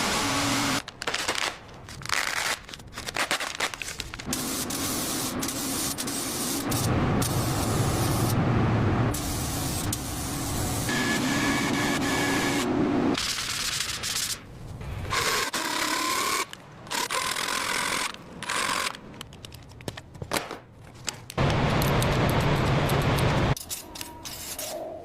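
A string of short workshop noises cut one after another, mostly hissing and rubbing sounds with a few lower steady machine stretches, each stopping abruptly at an edit.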